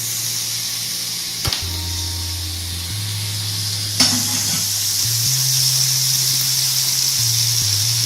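Butter and oil sizzling in a hot cast-iron grill pan, with a sharp knock about four seconds in, after which the sizzling gets louder as the rib-eye steak goes into the pan. Faint background music with low held notes plays underneath.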